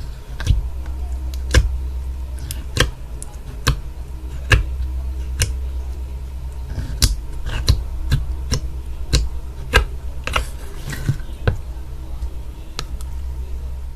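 Slime being played with by hand, giving sharp clicking pops about once a second over a steady low hum.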